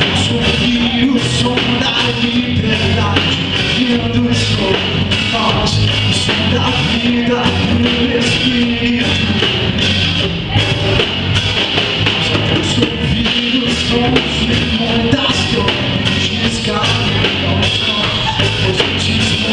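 Live band playing a reggae song, with a drum kit keeping a steady beat under sustained bass notes.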